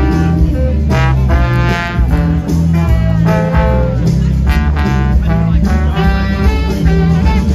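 Brass band playing a jazzy tune, horns over a steady bass line.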